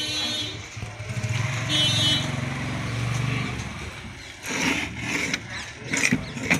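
A motor vehicle engine runs nearby for the first few seconds. Then come several sharp knocks and clunks as the battery is picked up and handled on the metal workbench.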